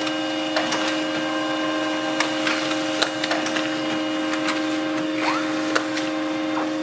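Pantum M6559NW monochrome laser printer running an ADF copy job: a steady motor hum with several tones, broken by scattered clicks and paper rustles as the originals feed through the document feeder and the copies come out.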